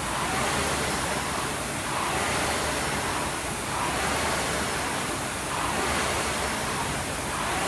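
Air-resistance flywheel of a rowing ergometer whooshing under hard, race-pace strokes, swelling and easing with each drive about once every two seconds.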